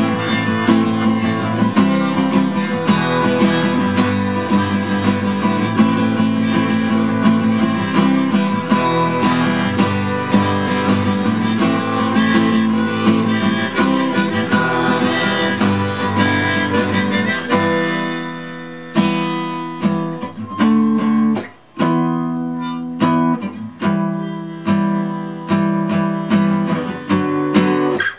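Harmonica and acoustic guitar playing a tune together. About two-thirds of the way through, the playing thins out to separate, spaced guitar strums.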